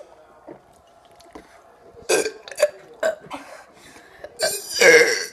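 Deliberate burps in a burping contest: several short burps starting about two seconds in, then a long, loud burp near the end.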